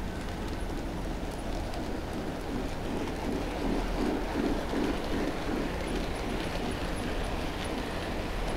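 Model trains running on their track: a steady rumble of wheels on rails with a rhythmic clatter, loudest around the middle as one train passes close.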